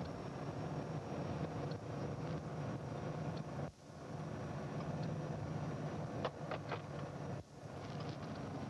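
Steady drone of a police patrol car's engine and road noise heard inside the cabin while driving at highway speed in a pursuit. The sound cuts out briefly twice, with a few faint clicks near the end.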